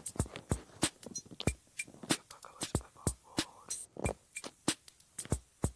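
A rhythmic percussive beat: deep thumps that drop in pitch, about every half second, with sharp clicks and ticks between them.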